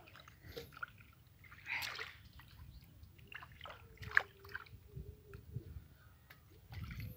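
Water sloshing and dripping as hands lift and work a wet fishing net in shallow river water, in irregular splashes with a sharp one a little after four seconds in.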